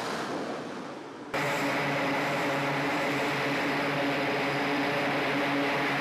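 A broad rushing, wind-like noise fades for about a second, then cuts abruptly to the steady drone of an E-2 Hawkeye's turboprop engines and propellers, several steady tones held at a constant pitch.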